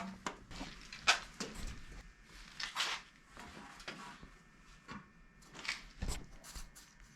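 Scattered handling noises: short scraping and rustling strokes and a few sharp clicks, as tools and metal parts of an old cast-iron table saw are worked on by hand.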